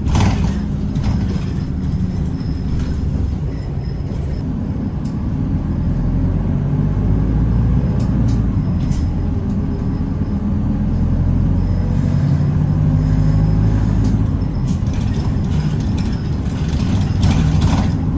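City bus's diesel engine running with a steady low rumble and road noise heard inside the cabin, with scattered clicks and rattles from the bus body. The engine note swells about a third of the way in as the bus pulls away.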